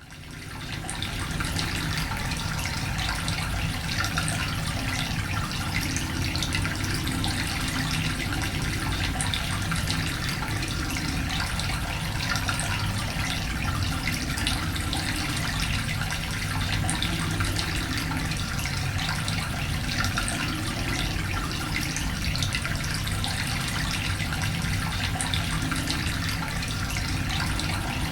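Cave ambience: many water drips and trickling water over a steady low rumble. It fades in over the first second.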